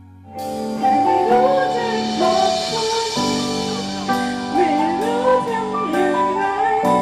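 A woman singing a melody over instrumental accompaniment, starting just after the start.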